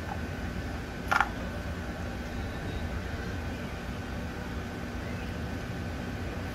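A single short, sharp clink about a second in: a small part set down on the engine's plastic valve cover. It sits over a steady low background rumble with a faint steady high tone.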